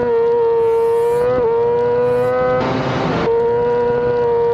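Yamaha YZF-R6's inline-four engine at high revs on a straight, a steady high-pitched note that creeps slowly upward, heard from a camera mounted on the bike's front. A short burst of rushing noise cuts in about two and a half seconds in.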